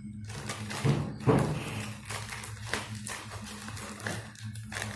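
Modem packaging box being opened and handled by hand: a few scattered thumps and taps, the loudest a little over a second in.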